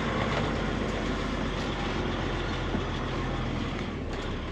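Kenworth semi truck's diesel engine idling steadily, a constant low drone with broad mechanical noise over it.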